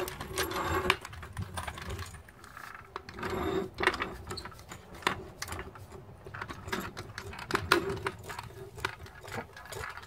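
Arcan hydraulic floor jack being worked under a car to lift it: irregular metallic clicks and short creaks from the handle and lifting arm.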